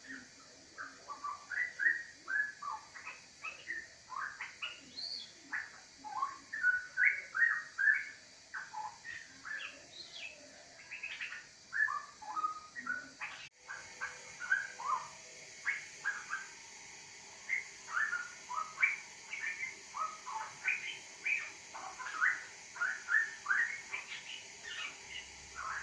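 Straw-headed bulbul (cucak rowo) singing, a continuous run of rich, rapid whistled phrases.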